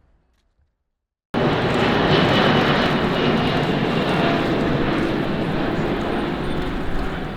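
Airliner jet engines running loud: a steady rush with a faint whine, starting suddenly after a second or so of near silence.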